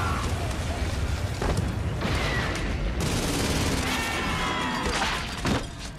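Battle sound effects from a war film: continuous gunfire and explosions over a heavy low rumble, with bullets striking steel and several sharp impacts, under dramatic music. A man's shout rises about four seconds in.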